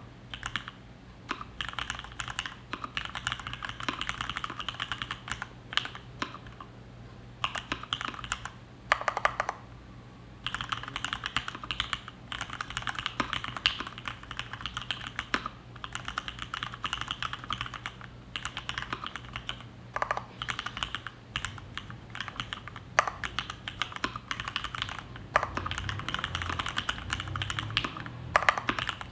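Typing on a DuckMini v1 mechanical keyboard with Cherry MX Black linear switches on 62 g springs and PBT dye-sublimated keycaps: fast runs of keystrokes broken by short pauses, with a few louder single strikes.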